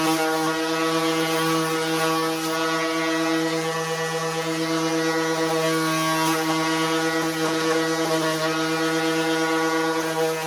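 Electric orbital sander running steadily with an even hum and a hiss over it, fine 300–400 grit paper working over a wooden rifle stock.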